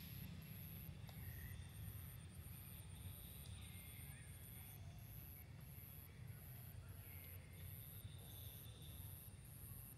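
Faint outdoor background: a steady low rumble, a faint high-pitched buzz pulsing at a regular rate, and a few soft chirps.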